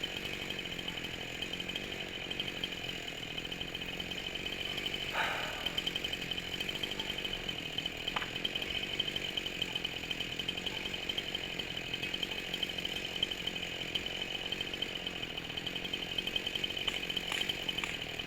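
Chainsaw running steadily at high revs, cutting through a pine trunk during its felling, with a brief louder rasp about five seconds in.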